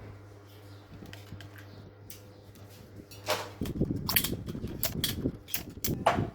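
Small 220V electric fan setup: a steady low mains hum, then from about halfway a series of sharp clicks and a gusty low rumble.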